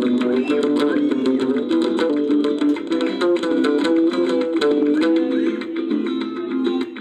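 Acoustic guitar playing a fast rumba flamenca, quick runs of plucked notes mixed with strums, amplified through a portable speaker.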